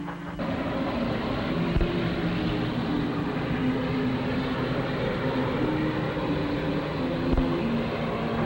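Steam train pulling in: a steady rumble and clatter that starts suddenly about half a second in, with two sharp thumps along the way.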